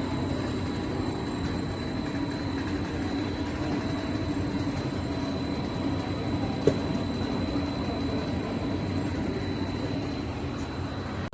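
Dog chew stick extruder machine running steadily: a dense mechanical drone with a constant hum and a thin high whine, and one short click about two-thirds of the way through.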